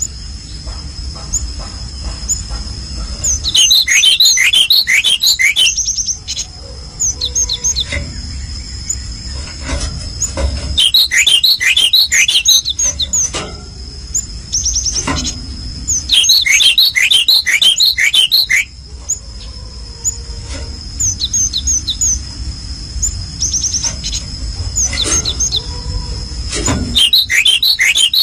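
Small songbird calling in clusters of rapid, high chirps, each cluster lasting about two seconds and coming back several times, over a steady high-pitched tone.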